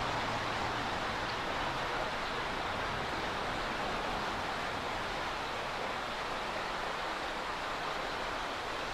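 Steady rushing of a shallow creek flowing over gravel, blended with the constant noise of traffic on the freeway overhead.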